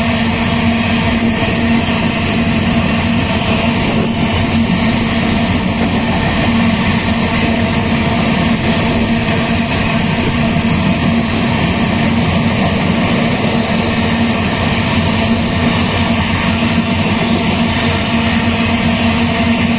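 Diesel locomotive hauling an iron-ore train: a steady engine drone with the rumble of the train, unchanging throughout.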